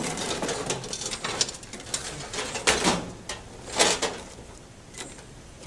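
Crinkling and rustling of aluminium dryer-vent hose and tape as the hose is fitted to a galvanized steel trash-can smoker. This is followed by a few louder, squeaky metal scrapes as the can's galvanized lid is handled.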